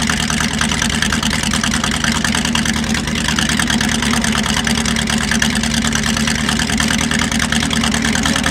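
De Tomaso Pantera's Ford 351 Cleveland V8 (5.8 L) idling steadily through its exhaust.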